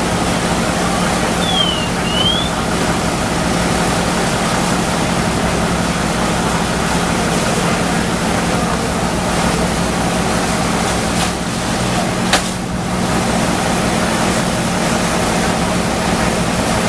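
Fire apparatus diesel engine running steadily, a constant low hum under a rushing noise. A brief high chirp sounds about two seconds in, and a single sharp knock about twelve seconds in.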